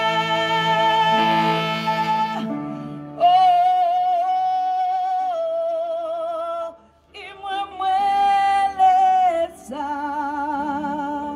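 A woman singing a gospel worship song into a microphone over sustained chord accompaniment. She sings long held notes with vibrato, with a short pause a little past the middle.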